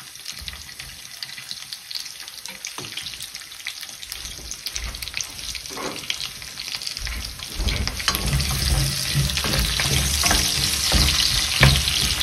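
Diced red onion sizzling in hot olive oil in a stainless steel frying pan, with many small crackles. The sizzle grows clearly louder about seven or eight seconds in, and a wooden spoon stirs the onions near the end.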